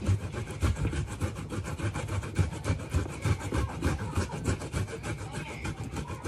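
Fresh ginger grated by hand on a metal box grater, in quick, even strokes.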